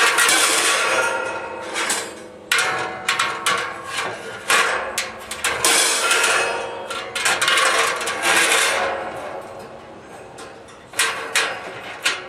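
Wire cooking grate knocking and scraping against the inside walls of a steel barrel smoker as it is lowered and set in place: a run of sharp metallic knocks with a few longer scrapes.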